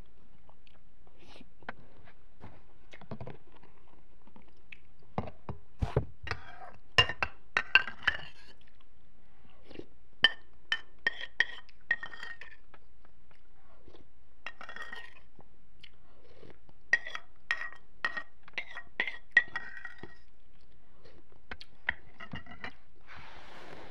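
A spoon clinking and scraping against a bowl in clusters of sharp, ringing taps, with chewing in between.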